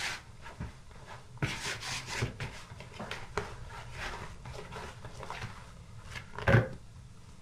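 Hands kneading soft yeast dough in a plastic bowl: irregular rubbing and squishing of dough against the plastic, with one louder thump near the end.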